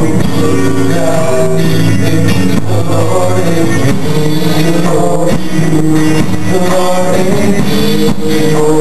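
A group of male voices singing a gospel worship song together with a live band.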